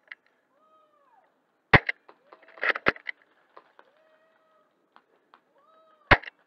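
Airsoft guns firing: sharp single cracks about two seconds in and near the end, with a quick rattle of shots around three seconds. Between them come several faint calls, each rising and then falling in pitch.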